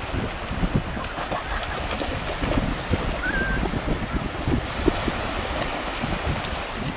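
Wind buffeting the microphone over small surf breaking at the water's edge, with a Vizsla splashing through the shallow waves. A short high chirp sounds a little past three seconds in.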